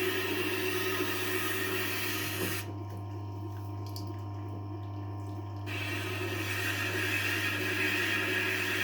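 Tormek T-8 wet sharpening machine running with a steady motor hum and a wet grinding hiss; the hiss drops away for about three seconds midway, then resumes.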